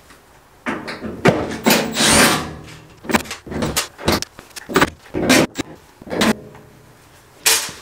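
Cordless drill-driver whirring in short bursts, backing the screws out of a washing machine's sheet-metal rear access panel, with clicks and knocks of the panel between bursts.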